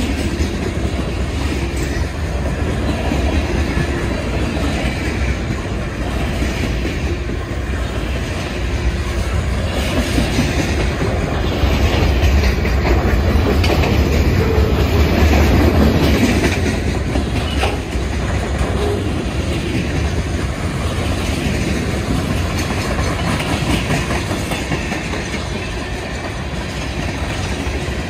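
Freight cars of a mixed manifest train (boxcars and tank cars) rolling past: a steady rumble of steel wheels on rail with repeated wheel clacks. It grows louder a little before halfway and eases off again.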